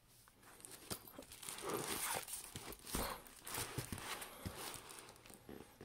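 Hands handling pillow packaging, a zippered fabric bag and a rolled, vacuum-packed pillow: irregular rustling with soft bumps and knocks.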